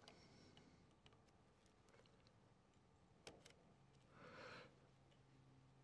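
Near silence: faint room tone with a few soft ticks and one brief soft rustle a little after four seconds in.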